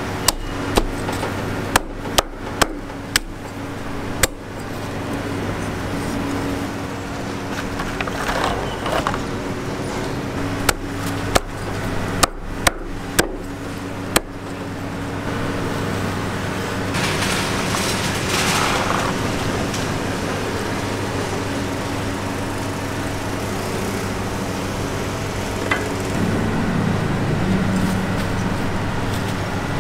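Cleaver chopping grilled chicken on a wooden chopping block: sharp chops in two quick runs, about a dozen in all, over a steady low hum.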